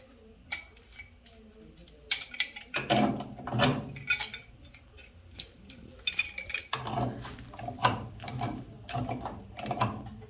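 Hand tools clicking and clanking in irregular clusters, busier from about three seconds in.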